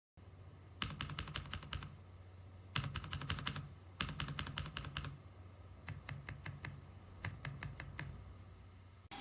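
Typing on a mechanical keyboard: quick runs of keystroke clicks in four or five bursts about a second long, with short pauses between, over a steady low hum.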